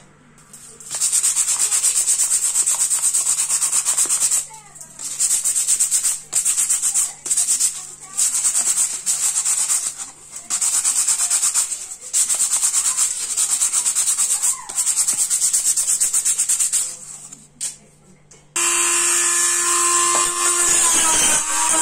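A piece of coconut shell sanded by hand with sandpaper on a block: runs of rasping strokes broken by short pauses. About eighteen seconds in, a handheld rotary tool starts and runs with a steady whine as it sands the outside of a coconut-shell bowl, its pitch wavering near the end.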